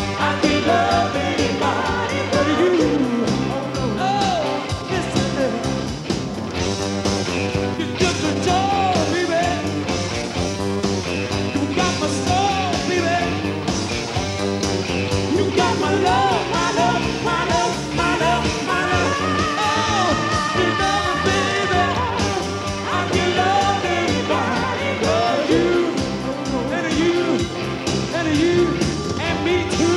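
Live rock band playing, with a lead line that bends up and down in pitch over the band.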